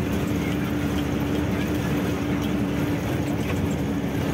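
A truck's engine and road noise heard from inside the cab while it drives, with a steady droning hum under an even rumble.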